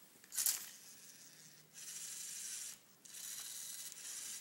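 LEGO Mindstorms NXT servo motors driving the Tilted Twister's arm and turntable as it scans a Rubik's cube. There is a short clack about half a second in, then two spells of gear whirring, each about a second long.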